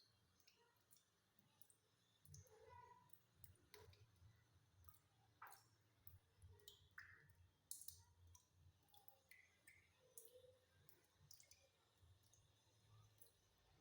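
Near silence with faint, irregular clicks and a few light knocks.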